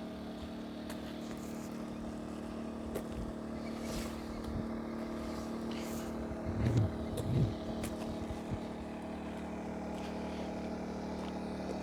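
A campervan's portable generator running with a steady, even engine drone.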